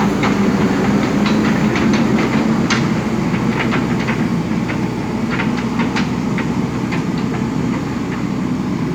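Diesel engine of a JCB 3DX backhoe loader running steadily under work, with scattered metallic clanks and clicks from the machine.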